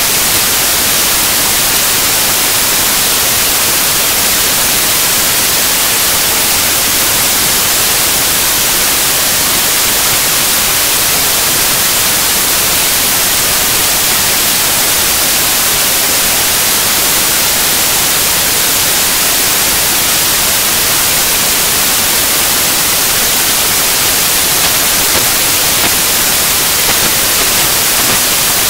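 Loud, steady static hiss like white noise, brightest in the treble, with no change in level or character.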